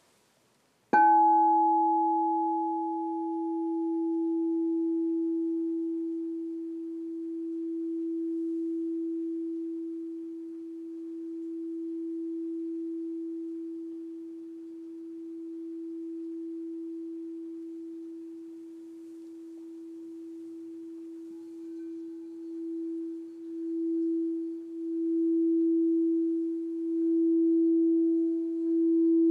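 Crystal singing bowl tuned to E, struck once about a second in, then ringing a single steady tone that slowly wavers in loudness while its higher overtones fade. About twenty seconds in, the mallet is rubbed around the rim and the tone swells, pulsing.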